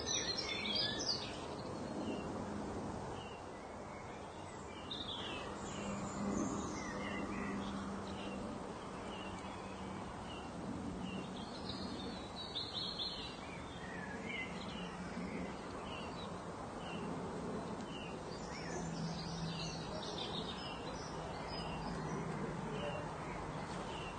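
Many small birds chirping over a steady background hiss, with a faint low hum underneath.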